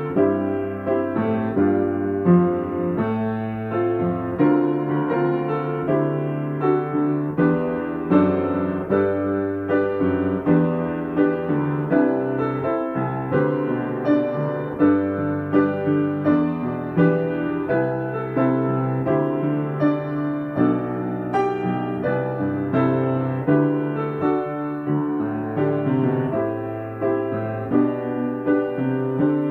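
Steinway & Sons grand piano played solo: a hymn arrangement of melody and chords over sustained bass notes, with fresh notes struck steadily throughout.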